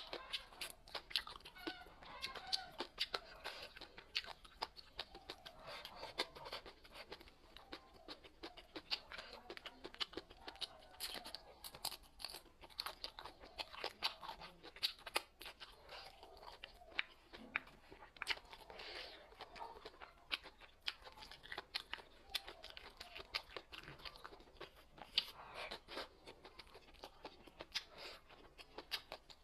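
Close-miked chewing and crunching of food, with a dense run of sharp crisp clicks and crackles throughout.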